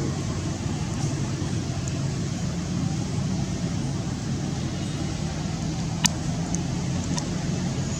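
Steady low rumble of a running engine or nearby road traffic, with a sharp click about six seconds in.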